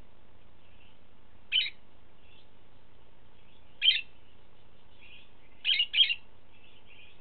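Budgerigar giving short, high chirps: one about a second and a half in, another near four seconds, then a quick double chirp near six seconds.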